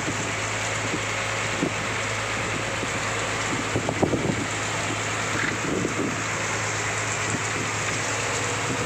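Heavy rain pouring down at sea, a dense even hiss, over the steady low hum of the fishing boat's engine under way. A few short low thuds break through now and then.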